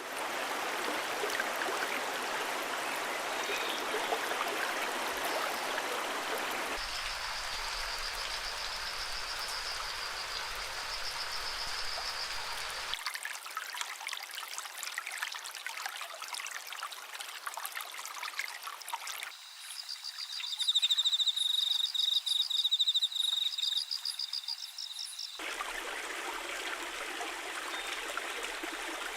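Flowing stream water, a steady rushing, in several clips joined with abrupt cuts. In two stretches, about a quarter of the way in and again past the middle, a high, fast-pulsing trill sounds over it, the second one louder.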